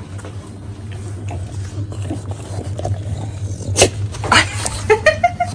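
English bulldog snuffling at and chewing a slice of apple on the floor, with small wet mouth clicks and two sharp crunches a little under four seconds in.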